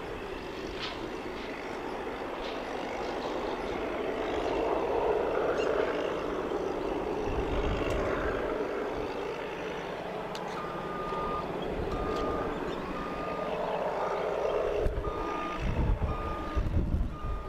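Construction vehicle's reversing alarm beeping about once a second at one steady pitch, starting about ten seconds in, over a steady rumble of engines.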